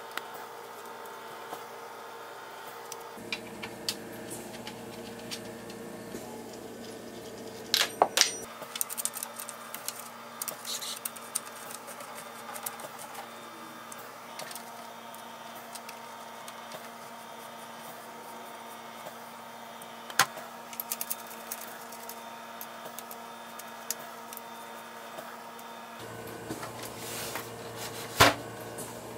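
Steady low room hum with scattered clicks and knocks: a metal hex key turning bolts into a pinewood changing-table frame. Two louder knocks come about a third of the way in and near the end.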